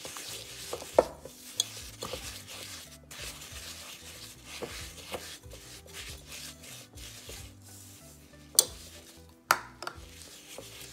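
Silicone spatula stirring desiccated coconut into condensed milk in a glass bowl: soft scraping against the glass, with a few sharp knocks, the loudest about a second in and twice near the end.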